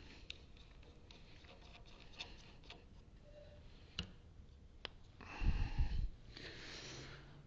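Scattered light clicks and taps from hands working at the mill setup, then a brief low rumbling bump and a soft rustle about five and a half seconds in.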